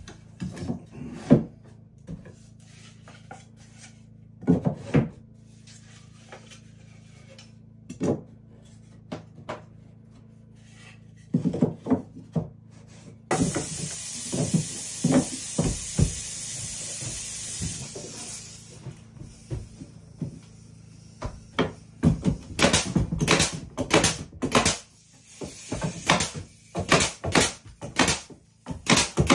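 Wooden knocks and clatters of boards being handled and fitted against a pine door frame. In the middle comes a few seconds of steady scratchy hiss as a sanding block is rubbed on the wood, and near the end a run of quick knocks.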